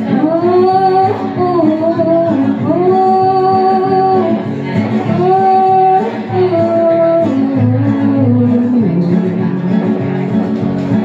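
A woman singing long held notes with guitar accompaniment in a live solo performance; the voice stops about nine seconds in and the guitar plays on alone.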